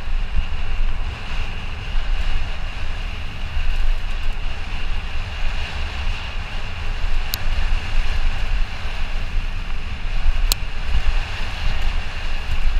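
Wind buffeting the microphone of a camera on a mountain bike descending a dirt singletrack at speed, over the steady rumble of the tyres on the trail. Two sharp clicks from the bike come in the second half.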